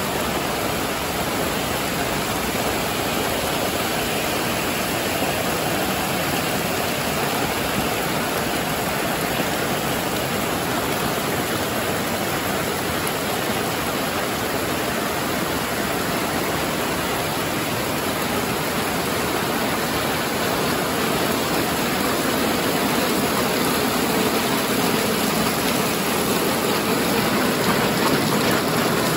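Heavy rain falling steadily, a dense even hiss. It grows a little louder and deeper near the end.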